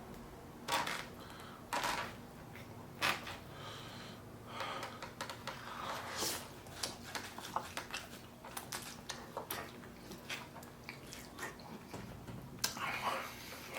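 Close-up eating sounds: a person chewing with wet mouth clicks and breaths through the nose, broken by a few sharper knocks.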